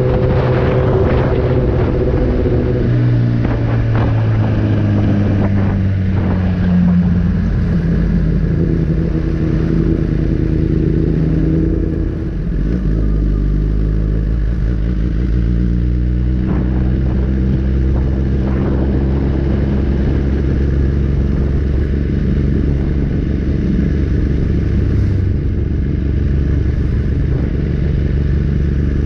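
Motorcycle engine running while the bike is ridden; its pitch rises and falls several times, over a steady low rush of road and wind noise.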